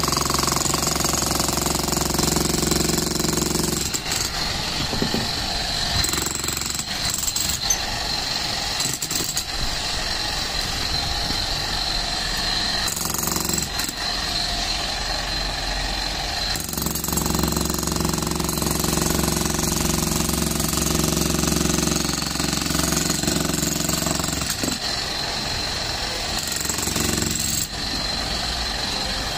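Bosch GSH 11 E electric demolition hammer running continuously, its chisel hammering into concrete. The loud, unbroken hammering changes in tone a few times.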